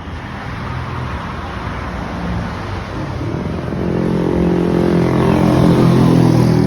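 A motor vehicle's engine passing close on the road. It grows steadily louder and is loudest near the end.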